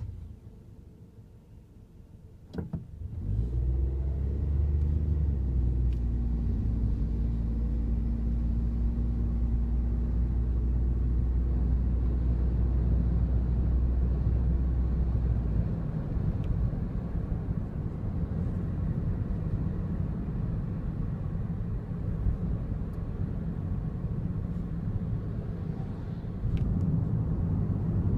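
Daihatsu Wake kei car's three-cylinder engine starting about three seconds in after a click or two, then running with a steady low rumble. About halfway through the rumble turns rougher and broader.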